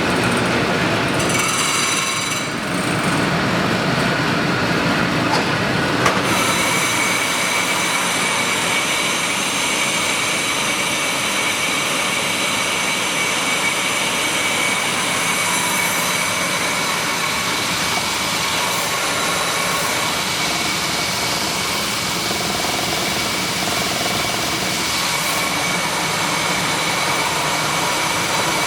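Rice milling and grits grinding machine running steadily, a loud, even mechanical noise with a thin steady high whine. There is a single knock about six seconds in.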